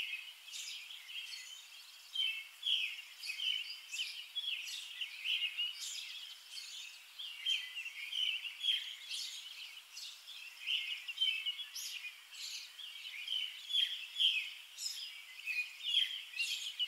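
Birds chirping and singing outdoors, a steady stream of short, overlapping high calls.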